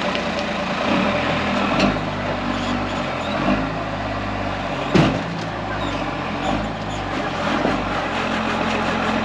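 Off-road truck engine running at low revs, with a sharp knock about five seconds in.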